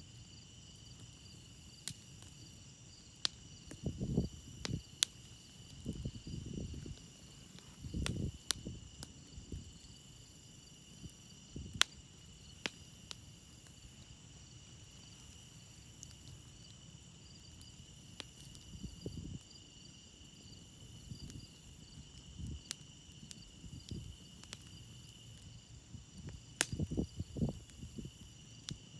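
Wood campfire crackling, with sharp single pops every second or two and a few soft low rumbles, over a steady chorus of crickets chirping.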